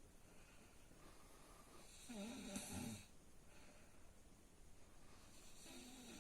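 Quiet snoring from a sleeper. One snore about two seconds in lasts about a second, and the next begins near the end.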